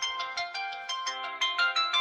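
A phone ringtone playing a quick melody of short notes, several a second, growing louder about one and a half seconds in.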